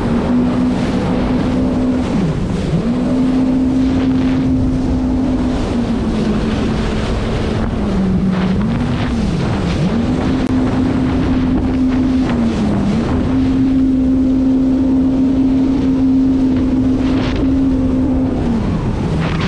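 Jet ski engine running at speed with a steady whine that dips in pitch and recovers several times: about two seconds in, twice between eight and ten seconds, around thirteen seconds, and near the end. Wind rushes over the microphone throughout.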